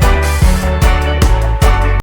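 Background music with a steady beat: bass, drums and guitar in a funk style, stopping at the very end.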